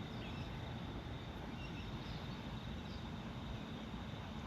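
Outdoor bush ambience: a steady high insect drone with scattered short bird chirps over a low, even background rumble.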